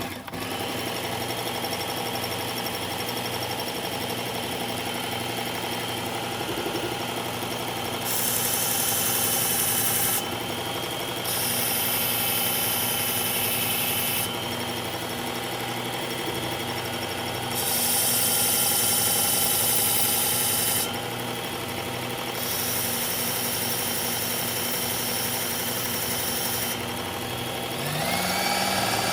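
Work Sharp electric belt knife sharpener running steadily, with a loud hissing grind each time the steel blade of a Gerber Propel Downrange knife is drawn across the belt: several passes of two to four seconds each. The motor's pitch sags slightly under each pass, and near the end the motor speeds up with a rising whine.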